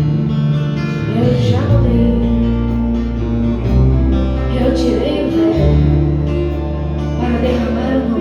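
Live church worship music: a band holding slow, long chords over a deep bass that changes every few seconds, with guitar and voices singing in places.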